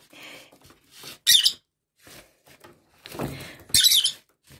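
Pet lovebird giving two short, shrill squeaky chirps, one about a second in and one near the end, with the soft rustle of a paper napkin wiping along the cage tray in between.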